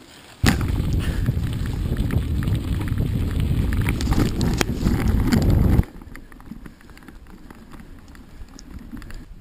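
Mountain bike riding over a gravel road, heard through an action camera: wind buffeting the microphone with the rattle and crunch of tyres on stones. It starts suddenly and is loud; nearly six seconds in it drops to a much quieter rustle with light clicks.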